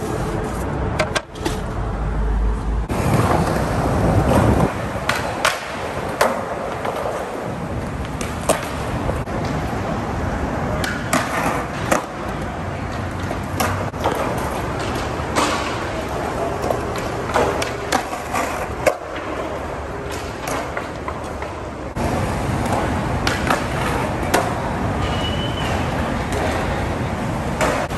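A few knocks as skateboards are pulled out of a car's cargo area. Then skateboard wheels rolling on concrete, with many sharp clacks of boards popping and landing.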